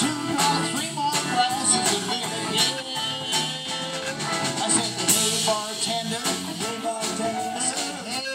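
Live band playing rock and roll with electric guitar, electric keyboard and drum kit, and a male singer on a microphone.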